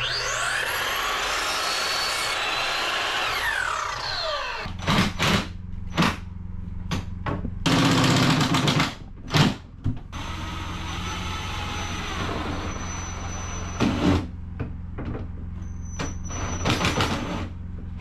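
A Ridgid miter saw spins up, cuts and winds down over the first four seconds or so. Then a Ryobi cordless drill/driver runs in several short bursts, driving screws into a wooden cabinet, with knocks and clatter of handling between the runs.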